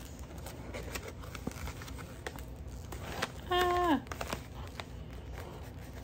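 Rustling and crinkling of a gift bag and wrapped fiber being handled, with scattered light clicks. About three and a half seconds in, a short pitched hum or squeak is heard, held and then falling in pitch.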